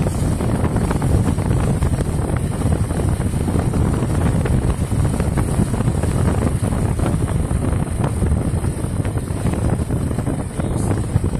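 Steady rumble of a moving vehicle's engine and road noise, with wind buffeting the microphone.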